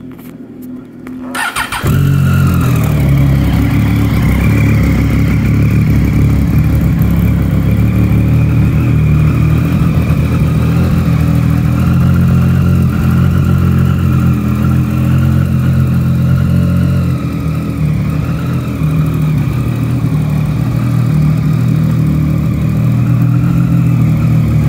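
A 2016 Triumph Daytona 675R's 675 cc inline three-cylinder engine is cranked by its electric starter about a second in. It catches almost at once and then idles steadily and loudly.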